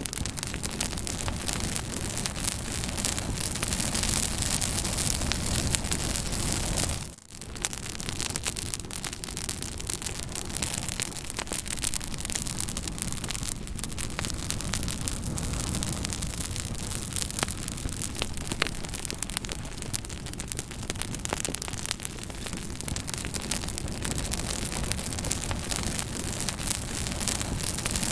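Fire crackling: a steady hiss with many sharp pops and snaps scattered through it. The sound dips out briefly about seven seconds in, then carries on.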